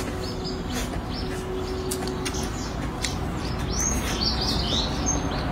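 Close-up chewing and mouth smacks of someone eating a mouthful of stir-fried rice noodles, with short clicky sounds throughout. A few high chirps come about four seconds in.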